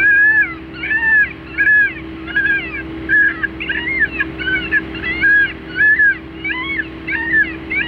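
Rapid run of short, arching cat cries, about two a second and all much alike, over a steady low hum.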